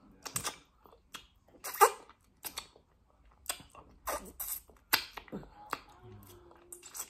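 Wet sucking and lip smacks as fingers are licked clean of stew after eating by hand. An irregular string of sharp smacks, the loudest about two seconds in.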